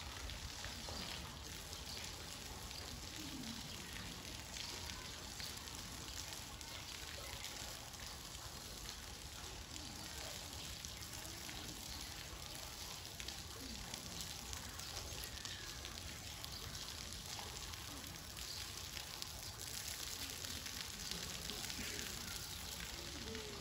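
Water from a zoo drinking spout pouring and splashing onto wet concrete in a steady patter while an African elephant drinks from it.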